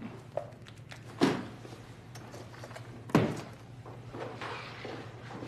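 Two loud thuds about two seconds apart, each with a short ringing tail, with a few fainter knocks between them over a steady low hum.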